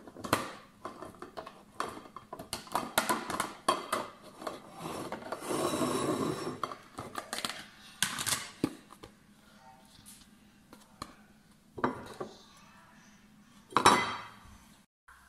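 Tableware handled on a table: a string of clinks and knocks as a glass, a ceramic bowl and a clear plastic tub are picked up and set down, with a longer rustling, scraping stretch about six seconds in and a sharp knock near the end.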